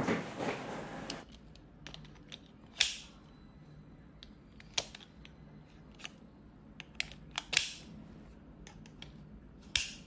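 A series of sharp plastic clicks and snaps as a Tajima tape measure is pushed into and pulled from its clip-on plastic belt holder, with handling rustle in the first second.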